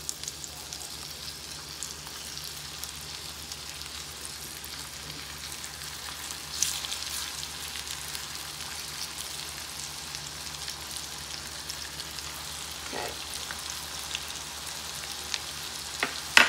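Almond-flour-breaded chicken cutlets frying in butter and olive oil in a cast-iron skillet: a steady sizzle with fine crackling. The sizzle flares briefly louder about six and a half seconds in.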